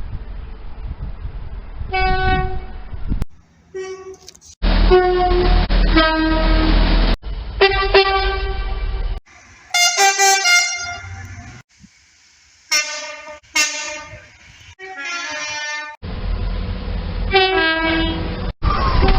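A rapid run of short clips of trains sounding two-tone horns, cut together abruptly about every two to three seconds. Most blasts are a held note that steps down to a lower one, over the rumble of the passing train.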